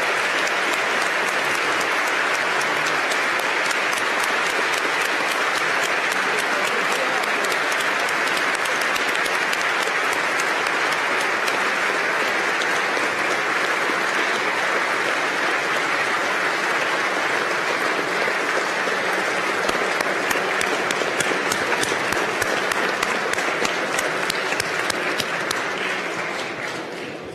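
Audience applauding steadily after a speech, the clapping dying away near the end.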